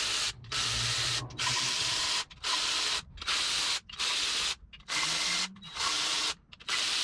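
Power tool run in about eight short bursts of just under a second each, spinning out the loosened main cap bolts of an LS 6.2 V8 block one after another.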